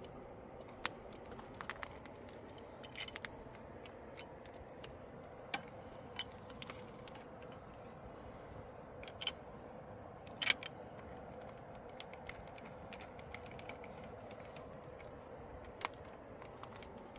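Irregular light clicks and clinks of small hard objects being handled, the loudest about ten seconds in, over a steady faint hiss.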